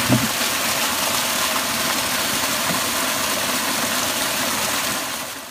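Small home-made water-turbine generator running in a stream: a steady rush of water through the turbine, mixed with the machine's whirr, fading out near the end.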